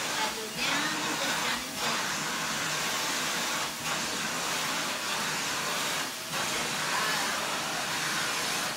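Upright vacuum cleaner running steadily, its hose nozzle drawn through a dog's coat, with a few brief dips in the noise.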